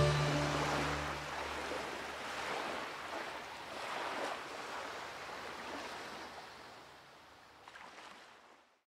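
The last notes of the closing music die away in the first second, leaving a wash of sea waves that swells and ebbs a few times, fades down and then cuts off.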